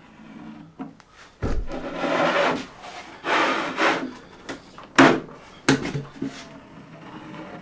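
Wood being worked and handled: a dull knock about a second and a half in, then two scraping strokes on wood, and two sharp knocks around five and six seconds in.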